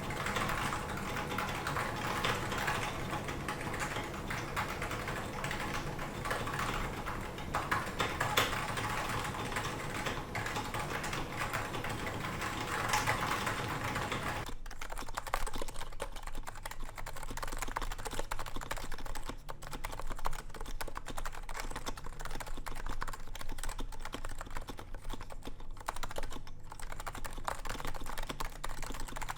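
Continuous typing on a DNFU keyboard with stock Realforce R2 internals: unlubed Topre switches on a steel plate with Realforce R2 keycaps, a quick, irregular run of keystrokes. The background hiss drops away about halfway through.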